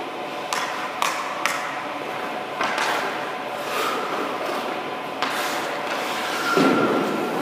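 A hockey goalie's skate blades scraping and cutting on the ice as he pushes and stops, with a few sharp knocks early on and a heavier scrape near the end.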